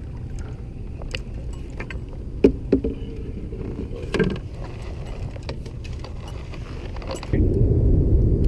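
A few sharp knocks on a canoe over a steady low rumble, which jumps suddenly louder about seven seconds in.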